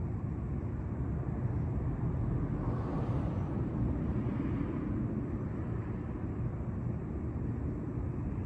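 Steady low rumble of city traffic, swelling slightly about three seconds in as a vehicle passes.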